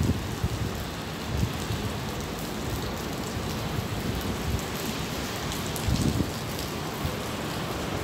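Steady rain, an even hiss, with a few brief low thumps about a second and a half in and again about six seconds in.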